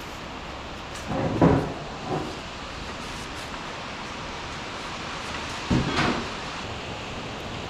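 Two short clunks, about four and a half seconds apart, over a steady hiss.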